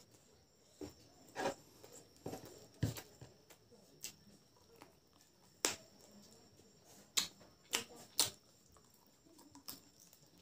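A person chewing a mouthful of boiled pork and rice close to the microphone: about ten soft, scattered wet clicks and smacks of the mouth, with quiet gaps between them.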